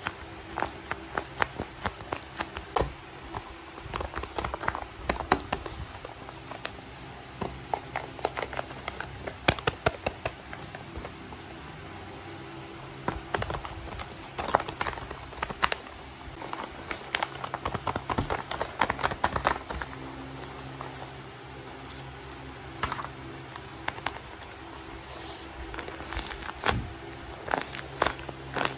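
Tape-covered paper squishies crinkling and crackling as they are squeezed and handled, in irregular clusters of sharp crackles with a few short lulls.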